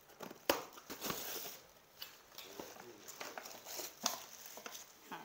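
Handling noise from unpacking an artificial Christmas tree: the cardboard box and its packaging being knocked and rustled. There is a sharp knock about half a second in, then a second of rustling, then scattered taps and a second loud knock about four seconds in.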